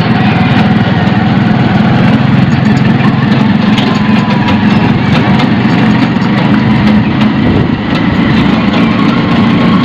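Motor vehicle engine running steadily close by, a low, even drone with no break.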